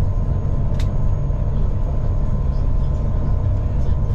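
Steady low drone of a high-speed catamaran ferry's engines and hull, heard from inside the passenger cabin while cruising at about 32 knots, with a faint steady whine running through it.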